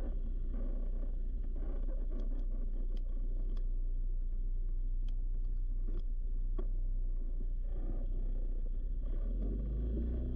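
ATV engine running with a steady low rumble and a few light ticks and rattles. Near the end the engine note grows stronger as the quad starts to turn and move off.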